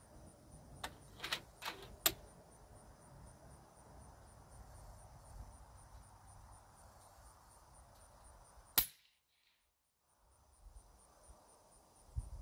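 A single sharp shot from a .30-calibre SKOUT Epoch PCP air rifle about nine seconds in, the loudest sound here. About one to two seconds in come four lighter sharp clicks.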